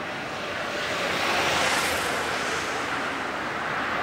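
A road vehicle passing close by, its tyre and engine noise a steady rush that swells to its loudest about one and a half seconds in.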